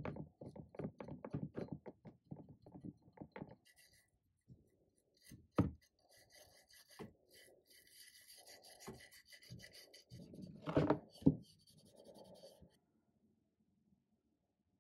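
A stiff brush scrubbing a small metal part of a pencil sharpener in quick repeated strokes, then a file rasping across the metal. The filing is broken by a sharp knock midway and a few thuds near the end.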